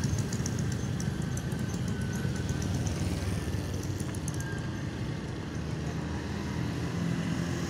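Steady road-traffic noise: the low rumble of passing vehicle engines.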